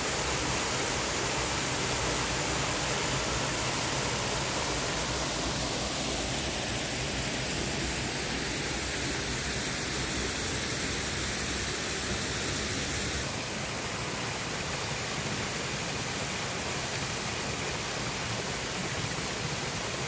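Small waterfall spilling in several thin streams over a rock ledge into a shallow pool: a steady rush of falling and splashing water. About two-thirds of the way in it drops a little in level and loses some of its low rumble.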